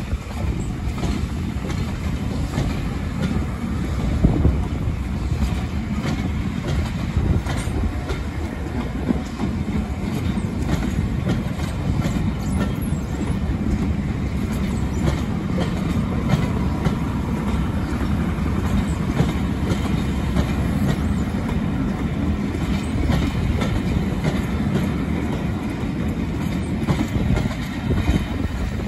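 Passenger coaches of a steam-hauled train rolling past as it departs: a steady rumble of wheels on the rails, with scattered clicks as the wheels cross rail joints.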